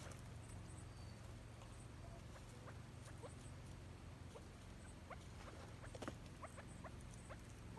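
Faint, short rising peeps from small game birds, scattered and coming more often in the second half, with a brief scuff about six seconds in. A low steady hum runs underneath.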